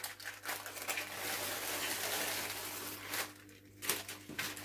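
Paper and plastic rustling and crinkling as hands peel a sheet of brick pastry with its paper liner off the stack in its plastic packet, pausing briefly a little after three seconds in.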